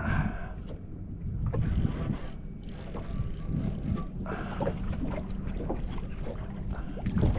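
Wind buffeting the microphone and waves washing against the hull of a small drifting boat at sea, an uneven low rumble with a few short splashes and knocks.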